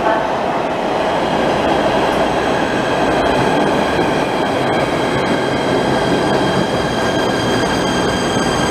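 PATH rapid-transit train rolling alongside an underground station platform as it pulls in and slows: a steady, loud rumble of wheels on rail, with faint high tones above it.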